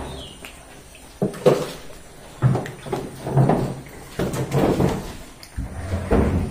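Buffalo calves jostling in a pen: a series of irregular knocks, bumps and scrapes.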